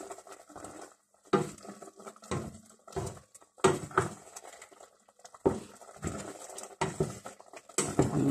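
Wooden spatula stirring chicken adobo in a stainless steel pot, knocking and scraping against the pot's sides and bottom in irregular strokes, roughly one a second.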